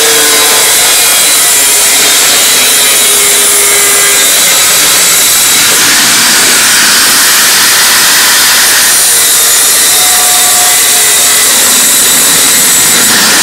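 Handheld angle grinder with a thin cutting disc running loud and steady as it cuts a straight line through a white board panel.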